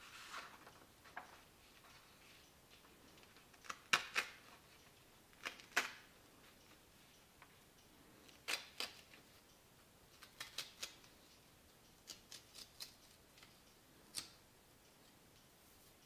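A sheet of paper handled on a table: short crisp rustles and crackles in clusters as it is folded, creased along the fold and torn into two halves.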